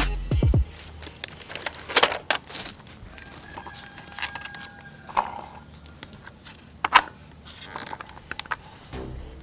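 Small toy cars being handled: scattered clicks and light clatter of hard toy parts knocking together, a cluster about two seconds in and single sharp knocks near the middle and later. Background music fades out at the very start.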